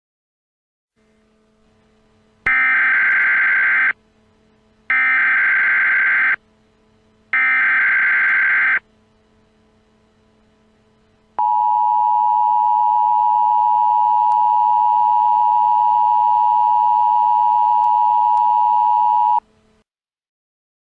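Emergency Alert System header: three bursts of SAME digital data tones, each about a second and a half long with roughly a second between them, then the two-tone EAS attention signal held steady for about eight seconds, the sound that announces an emergency alert message.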